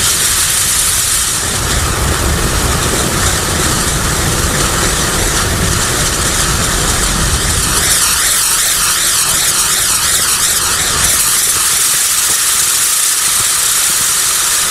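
Absolute Fireworks Fortunes Wheel firework spinning, its drivers giving a loud, steady hiss as it throws sparks. From about eight seconds in, a warbling whistle rises and falls rapidly over the hiss.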